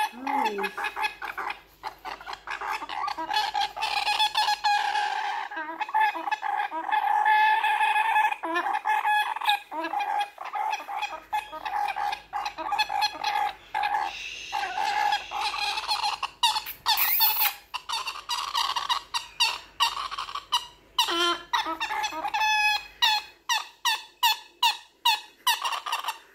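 Baby galah (rose-breasted cockatoo chick) calling repeatedly with raspy calls. Near the end the calls turn into a quick run of short calls, about three a second.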